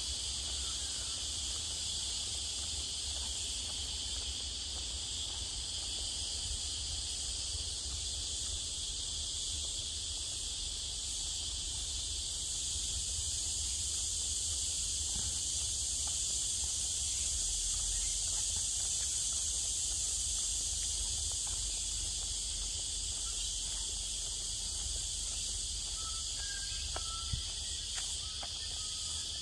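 Steady, high-pitched chorus of insects droning on without a break.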